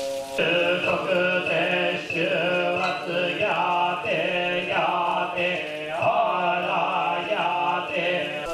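Buddhist monks chanting a sutra together, in drawn-out sung phrases that rise and fall about once a second.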